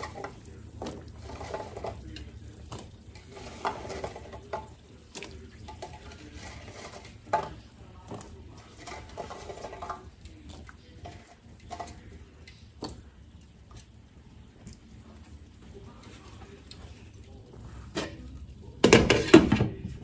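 A stainless steel pot of broth simmering on a stovetop, with scattered light clinks and knocks of a utensil against the pot. Near the end comes a loud clatter lasting about a second as the glass lid is set on the pot.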